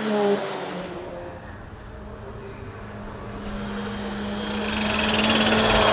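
Modified Daihatsu Copen L880K race car's engine at speed: the note drops in pitch as the car passes at the start, then a steady engine note grows louder as the car comes on hard towards the line, with a fast, harsh rasp over it near the end.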